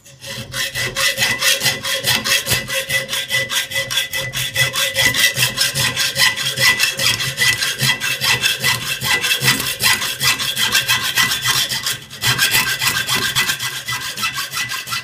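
Hacksaw blade in a homemade rebar frame sawing through a thin steel rebar clamped in a vise, with rapid, even back-and-forth strokes of the blade's teeth scraping the steel. The strokes pause briefly about twelve seconds in, then resume.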